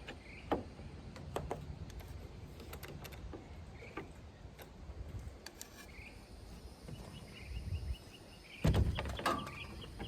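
Scattered light clicks and knocks of parts and tools being handled, with a louder clatter of knocks about nine seconds in.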